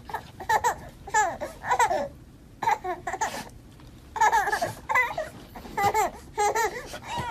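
A baby laughing and squealing in about nine short, high-pitched bursts with brief pauses between them.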